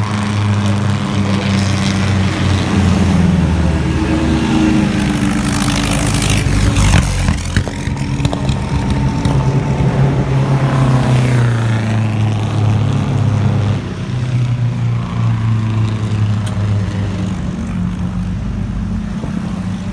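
Vintage racecar engines running, their pitch shifting as they are revved and eased off. About seven seconds in, one car passes close by with a rush of sound, and there is a weaker pass around eleven seconds.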